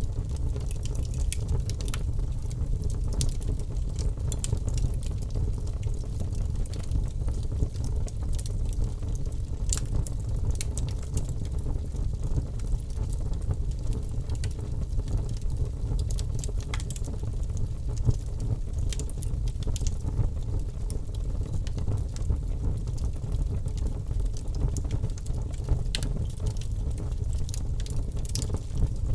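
Wood fire in a fireplace crackling: scattered sharp pops and snaps at an irregular pace over a steady low rumble.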